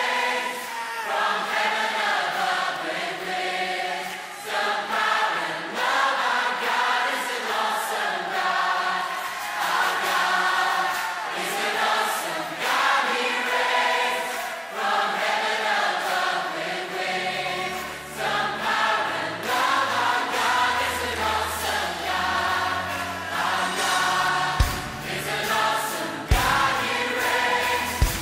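Background music of a choir singing sustained lines. Low bass notes come in about two-thirds of the way through, and a few sharp beats land near the end.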